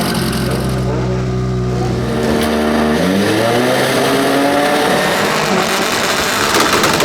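Race car engine held at steady revs before the start, then launching about three seconds in, its pitch jumping and climbing as it accelerates away.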